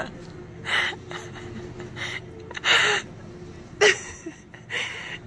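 Short breathy snorts or sniffs through the nose, about five in a few seconds, the longest near the middle and a sharp one shortly after.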